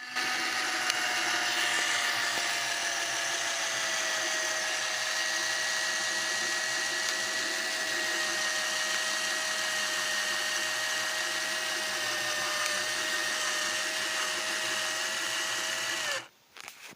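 Small electric power-tool motor running steadily for about sixteen seconds, its whine sagging slightly in pitch, then switched off suddenly.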